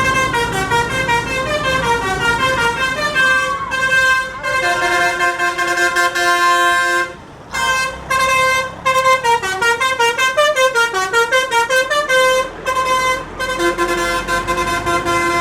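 Tour bus 'telolet' musical horn: several air-horn trumpets sounding in quick stepping runs of notes, like a short tune. There is a brief break about seven seconds in, a fast string of short separate notes a few seconds later, and another short break near the end.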